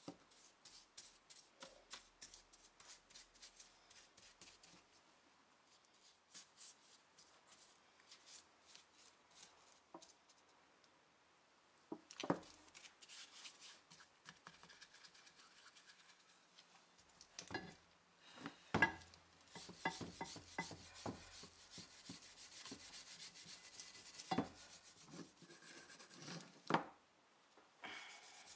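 A brush scrubbing liquid over the cast-iron parts of a wood vise, its bristles rasping on the metal in quick strokes: light dabbing at first, then heavier, steadier scrubbing. A few sharp knocks come as the heavy jaw pieces are shifted on the bench.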